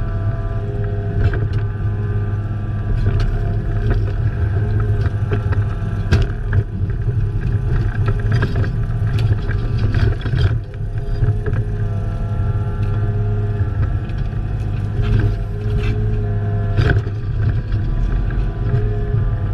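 Excavator's diesel engine running steadily under work, with scattered metallic clanks and knocks from the machine.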